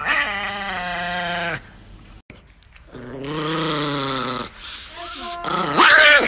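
Chihuahua growling in long, drawn-out grumbles: one held steady for about a second and a half, then after a short break another that rises and falls in pitch, with shorter wavering growls and whines near the end.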